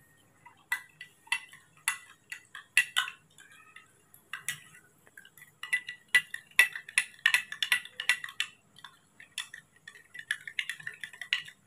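Thin metal spoon stirring powdered milk in a glass tumbler, clinking against the glass in quick, irregular taps that each ring briefly, busiest about halfway through.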